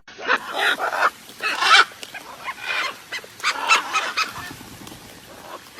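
A run of harsh, rasping animal calls, several in quick succession: one cluster in the first two seconds, the loudest near its end, then more calls around three to four seconds in, fading to quieter ones.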